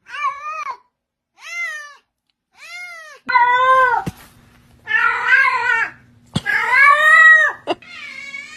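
A cat meowing over and over: about six separate meows, each rising then falling in pitch, the later ones louder and longer.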